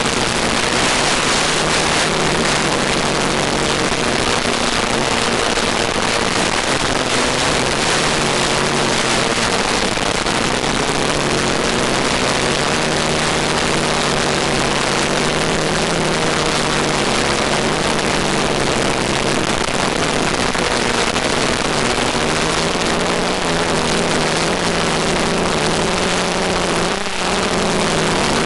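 Multicopter's electric motors and propellers whirring in flight, heard over the onboard audio with a loud steady hiss. The motor tones drift slightly in pitch as the throttle changes, and there is a brief dip in level near the end.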